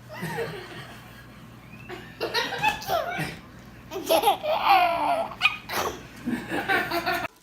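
Laughter in repeated bursts, a baby's laughter among it, stopping abruptly near the end.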